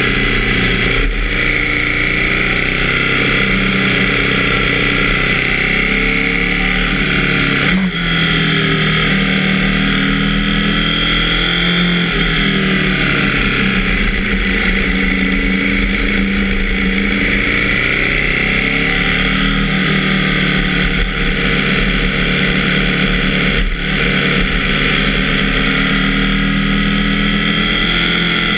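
KTM 790 Duke's parallel-twin engine running under way, heard heavily distorted on an onboard camera, its pitch rising and falling with the throttle, with a couple of brief dips in level.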